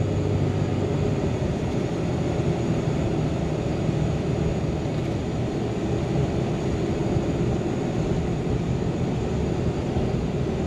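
Steady engine and road noise inside the cab of a 2013 Ram 3500 pickup with the 6.7 Cummins turbo diesel, driving along.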